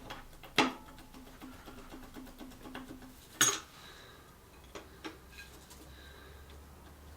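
Metal-on-metal clinks from plumber's grips working a connecting-rod big end on the engine's underside while checking for bearing play: a sharp clink about half a second in that leaves a faint ringing note, a louder clink a few seconds in, then a few faint ticks.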